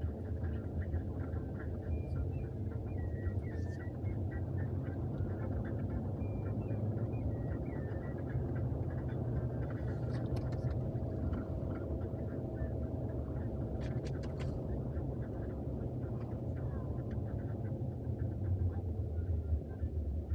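Steady low road and engine drone heard inside a Jeep Wrangler Rubicon's cabin while driving at town speed, with a few faint clicks about ten and fourteen seconds in.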